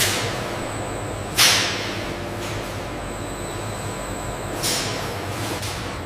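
Factory machinery running with a steady hum and a high whine, broken by short sharp hisses that die away quickly: a loud one about a second and a half in and a softer one near the end.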